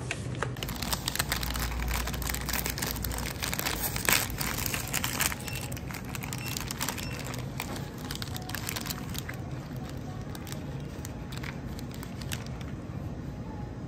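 Plastic bread wrapper and clear plastic tray crinkling and crackling as hands unwrap a packaged cream bun and lift it out. The crackling is dense and loudest in the first half, then thins out near the end.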